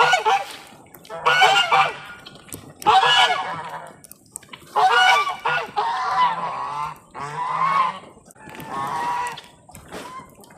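Domestic geese honking over and over, a loud call about every second and a half.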